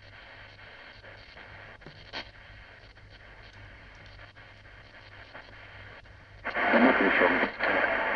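Shortwave band of a Philips DL225 portable radio being tuned between stations: faint static hiss with a steady low hum and a few soft clicks. About six and a half seconds in, a broadcast station suddenly comes in loud.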